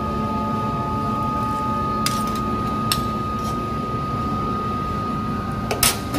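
Stainless steel serving tongs and ladles clinking lightly against steel food pans a few times, with a louder cluster of clinks near the end, over a steady restaurant hum that carries a faint constant high tone.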